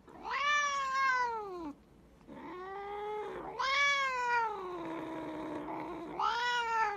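A domestic cat meowing four times in a row: long, drawn-out meows, each swooping up and then down in pitch, the third the longest.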